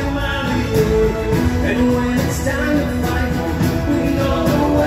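Music with singing from the fireworks show's soundtrack, played over the park's loudspeakers.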